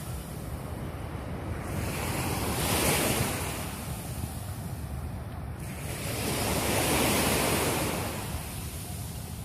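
Sea waves breaking and washing up the beach, swelling twice: about three seconds in and again around seven seconds. Wind buffets the microphone with a steady low rumble.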